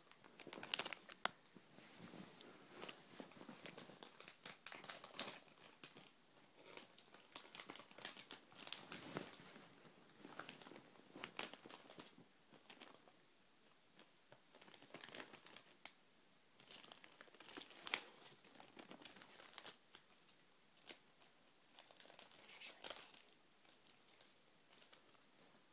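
Packaging being opened by hand: intermittent crinkling, rustling and tearing of wrapping, in short bursts.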